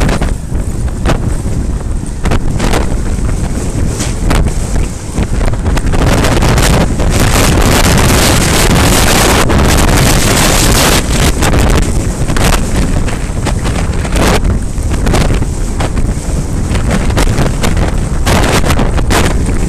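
Wind buffeting the microphone of a TomTom Bandit action camera on a moving road bike: a loud, rough rush, strongest for several seconds in the middle, broken by short crackles.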